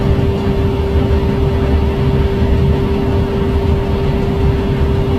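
Boeing Vertol 107 tandem-rotor helicopter taxiing with its twin turboshaft engines and both rotors running: a steady low rumble with one steady whine above it.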